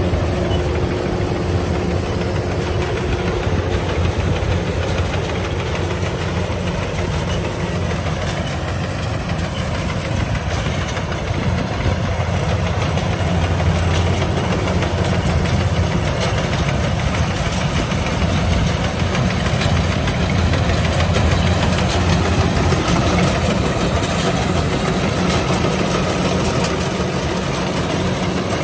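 Kubota DC-105X combine harvester's diesel engine running steadily while the machine cuts rice, its drone carrying throughout.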